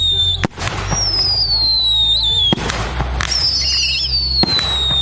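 Fireworks display: whistling fireworks going up one after another, each a high whistle that falls slowly in pitch for about two seconds, with a sharp bang about every two seconds.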